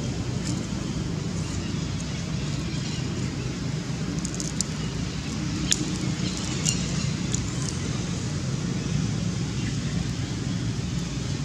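Steady low background rumble, with a few faint sharp clicks near the middle.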